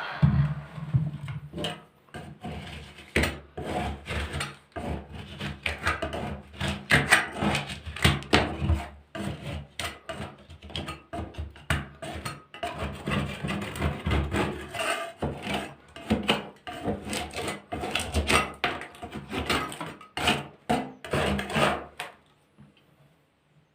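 Hand scraper scraping heat-softened old paint off wooden floorboards in many quick, irregular strokes. The strokes stop near the end.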